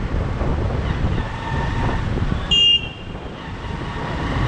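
Road vehicle noise, a steady low rumble, with one short high-pitched horn beep about two and a half seconds in.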